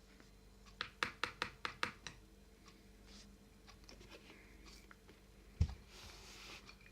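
A quick run of about seven sharp clicks of a utensil tapping and scraping on a plate as glue is stirred for slime, then fainter scrapes and a single dull thump.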